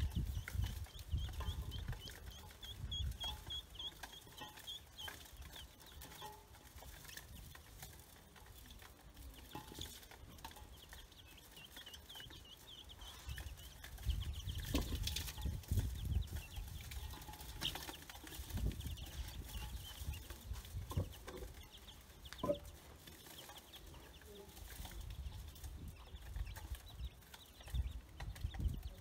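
Chicks and ducklings peeping in runs of short, high calls while they peck feed in a metal basin, with scattered sharp clicks and some low thuds.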